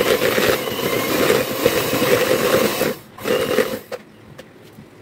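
Electric hand mixer running with its beaters in butter in a plastic bowl, a steady whir, creaming the butter. It stops about three seconds in, runs again for a short burst, and is switched off before four seconds.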